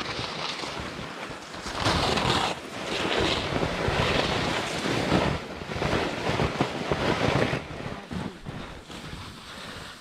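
Skis scraping and carving over firm, refrozen spring snow in a run of turns, each turn a surge of hissing scrape, with wind rushing over the microphone; it eases off near the end.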